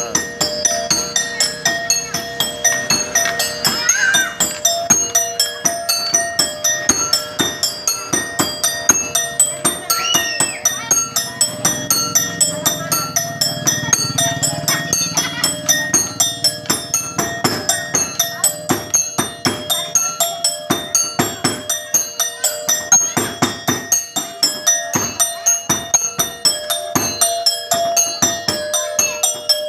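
Accompaniment music for a street monkey show: a fast, steady beat of struck percussion over held ringing metallic tones, repeating evenly without a break.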